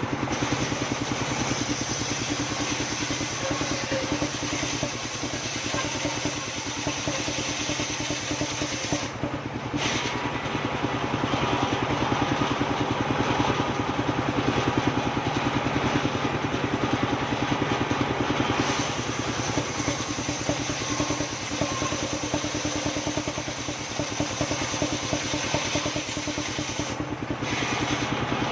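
Engine of a wood-sawing machine running steadily, with a rapid, even firing pulse.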